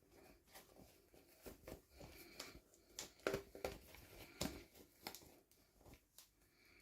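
Faint clicks and rustles of hands unboxing and handling miniature doll toys and their packaging, with a few sharper clicks around the middle.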